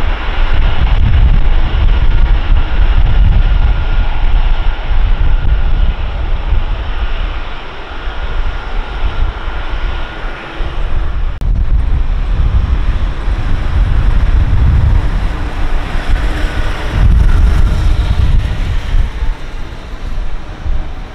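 Boeing KC-135 Stratotanker taxiing, its four CFM56 turbofan engines running with a faint steady whine over a heavy low rumble. Wind buffets the microphone, so the rumble rises and falls.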